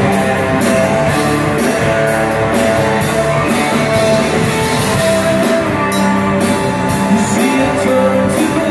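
Live rock band playing an instrumental passage on electric guitars and a drum kit, with steady cymbal hits.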